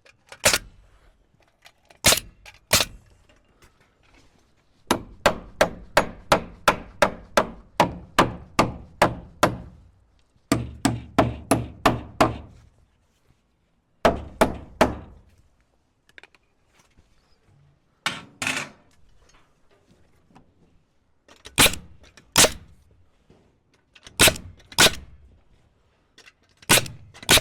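Hammer driving nails into a 2x6 wooden sub-fascia board: a rapid run of about fourteen blows, roughly three a second, then shorter runs, with single and paired strikes spaced out near the end.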